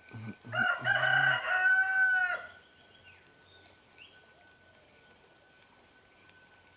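A rooster crowing once, a single call of about two seconds that ends on a drawn-out held note.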